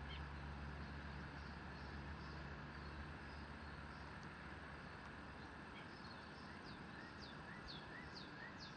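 Faint background of a steady low hum with a bird chirping: short falling chirps, scattered at first and coming about twice a second in the second half.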